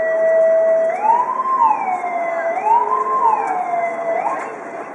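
Siren of an East German Volkspolizei Lada police car, sounding loud through its roof-mounted horn loudspeakers: a steady tone for about a second, then two wails that each rise quickly and fall slowly, stopping shortly before the end.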